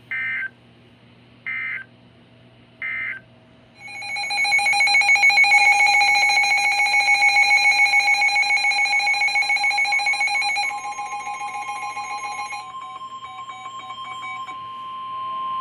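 Emergency Alert System end-of-message data bursts: three short harsh digital squawks, then a loud, rapidly pulsing electronic alert tone. About halfway through, a steady single-pitch weather radio warning tone joins and runs on after the pulsing stops.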